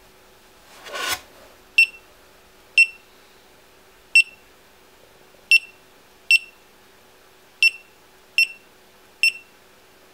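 GoPro Hero 3 Black action camera beeping as its buttons are pressed to step through the settings menu: eight short, high beeps at uneven intervals. A brief rustle of the camera being handled comes about a second in.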